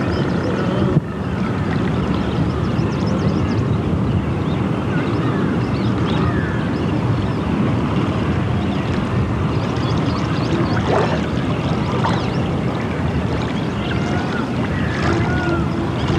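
Steady low rushing of wind on the camcorder microphone and the flowing Ganges river, with scattered faint high chirps over it. A brief bump about a second in.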